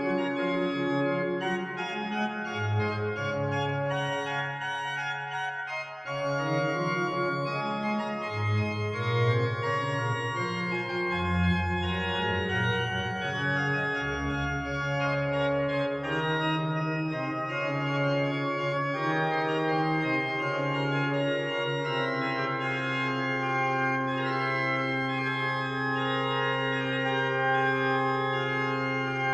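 Organ music: slow sustained chords over bass notes that change every second or two, settling on one long held bass note for the last several seconds.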